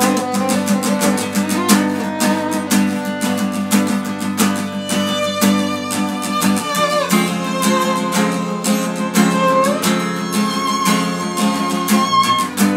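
Acoustic guitar strumming a steady rhythm, with a violin playing a bowed melody over it.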